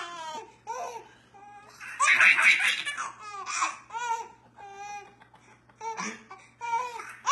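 A baby laughing in repeated short bursts, the loudest a couple of seconds in.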